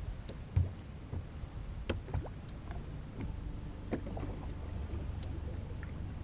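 Low steady rumble of water and wind around a bass boat sitting on open water, broken by a few sharp clicks and knocks.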